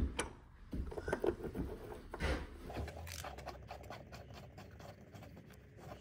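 A white PVC adapter being handled and threaded by hand into the air handler's plastic condensate drain port: a few knocks and scrapes over the first two seconds or so, then a run of small quick clicks and scratches as it turns in.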